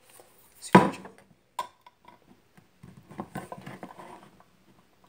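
Pull-tab lid of a soup can being pried open by hand, hard going: a sharp click about a second in as the tab lifts, a smaller click, then a stretch of scraping and crackling as the lid tears back.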